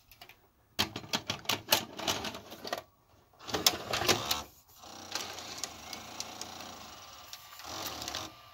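The exposed tape-transport mechanism on the underside of a Fisher FVH-4901 VCR: first a rapid run of mechanical clicks and clacks from gears and levers shifting. From about halfway, a steady whir of the motor and belt-driven pulleys running.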